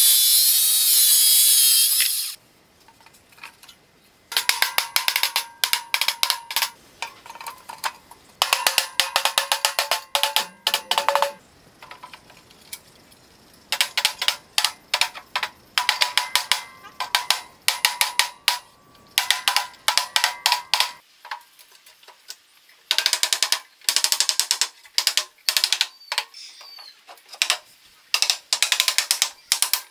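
A circular saw cutting through a wooden strip for about the first two seconds, stopping abruptly. After a short pause, repeated bursts of rapid clicking from a hand ratchet tool driving fasteners, each burst a second or two long.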